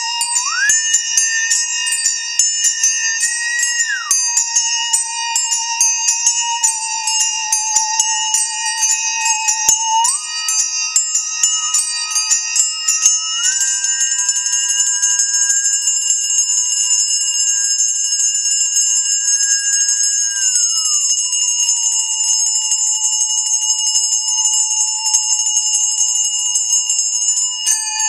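Handbells struck in quick succession over the sustained singing tone of a musical saw, which slides up and down in pitch with a slight vibrato. About halfway through the bells blur into a steady shimmering ring, then break back into separate strikes near the end.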